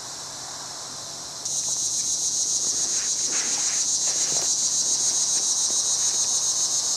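Insects calling in a steady, shrill chorus with a rapid, even pulse, which jumps louder about one and a half seconds in.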